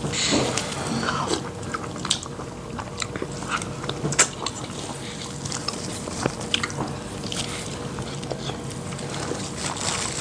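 Two people eating fufu and soup with their hands as fast as they can: a string of wet mouth sounds, swallowing and small clicks from fingers, lips and bowls.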